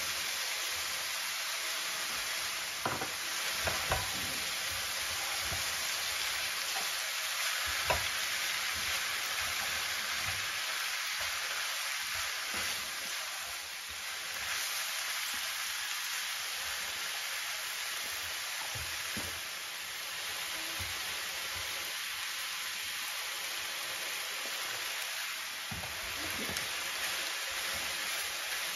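Mixed stir-fry vegetables sizzling steadily in oil in a non-stick frying pan, while a spatula stirs them with a few short scrapes and knocks against the pan.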